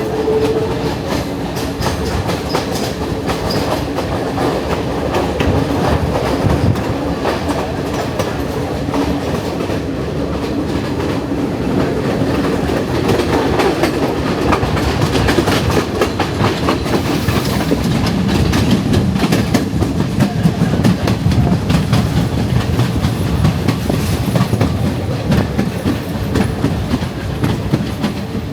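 Passenger train on Sri Lanka's hill-country line heard from aboard, its wheels clattering steadily over the rails. A low steady hum fades about halfway through.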